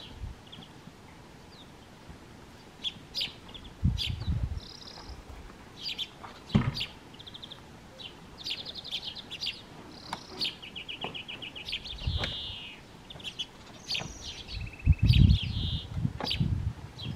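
Small songbirds chirping and singing quick trills. Several dull low thumps break in, the loudest cluster near the end.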